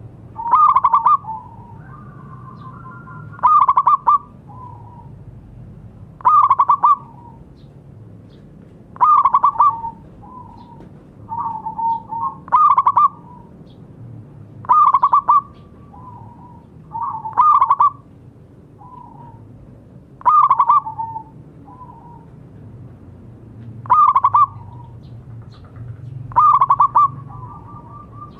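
Zebra dove (perkutut) cooing: a loud phrase about every two and a half to three seconds, each a quick stuttering run of notes ending in softer trailing coos.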